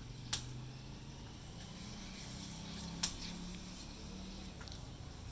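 Plastic toy pistol clicking as its manual mechanism is worked by hand: two sharp clicks about three seconds apart, over a faint steady low hum.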